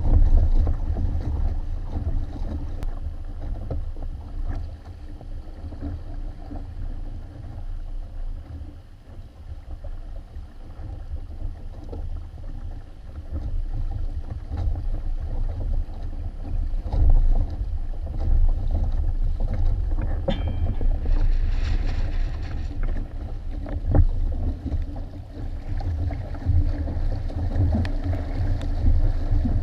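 Wind buffeting the microphone of a camera mounted on a Hobie Tandem Island sailing trimaran, over the rush and splash of water along the hull and outrigger amas while it sails. The wind noise eases for several seconds about a third of the way in, then picks up again.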